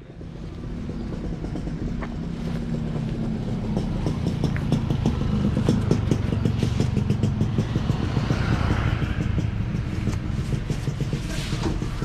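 A motor vehicle engine runs steadily close by with a rapid low rumble that swells a little midway. Near the end a whoosh sound effect sweeps in.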